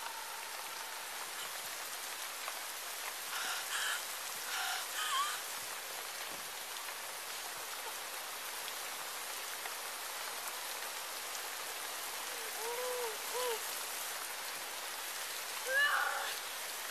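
Steady rain falling, with a woman's sobbing cries breaking through a few times: a short run of cries about four seconds in, two more about two-thirds of the way through, and another near the end.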